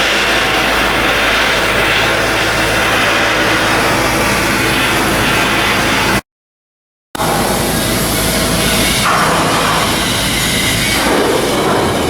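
Loud, steady noise of shipyard machinery at work, with a continuous hum underneath. It drops out to complete silence for about a second just after the middle, then resumes.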